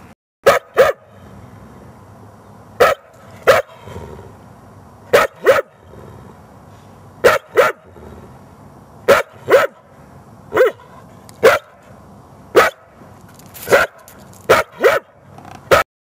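A dog barking about seventeen times, short sharp barks that often come in pairs, one every second or two.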